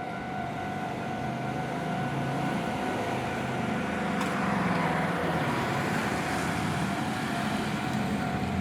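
A railway level crossing's warning alarm rings steadily while a JR Kisei Main Line train rolls through. The train's rumble builds to its loudest about halfway in.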